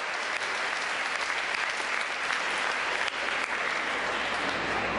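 An audience applauding: many hands clapping in a steady, dense patter that holds level throughout.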